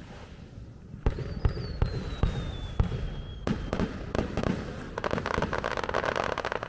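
Aerial fireworks bursting: several sharp bangs starting about a second in, with a thin whistle sliding down in pitch, then a dense, rapid crackling in the last couple of seconds.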